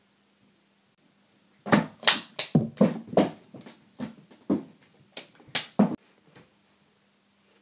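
Hands clapped together like snapping alligator jaws: about a dozen sharp, loud claps in quick uneven succession, between about two and six seconds in.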